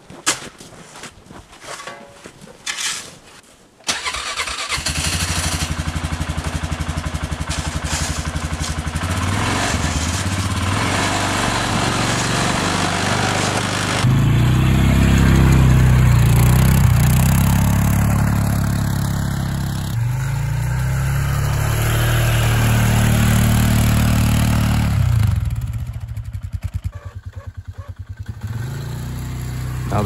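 A few scraping knocks of snow shovelling, then about four seconds in a four-wheeler (ATV) engine comes in and runs steadily. It grows louder and its pitch rises and falls as the ATV with its plow blade drives through deep snow.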